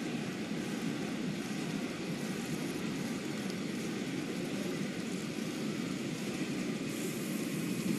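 Stadium crowd noise: a steady, even din from a large crowd in the stands, with no single cheer, chant or whistle standing out.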